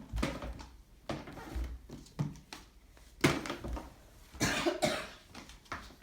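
A young child coughing, about five short coughs spread over a few seconds; the child is coming down with a cold.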